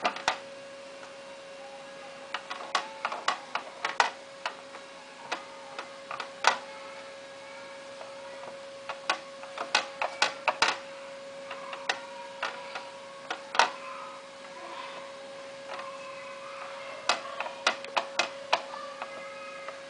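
Irregular sharp clicks and taps, often several a second in clusters, from a cloth being rubbed and pressed hard over a wet vinyl skin on a laptop lid resting on a glass tabletop. A steady faint hum runs underneath.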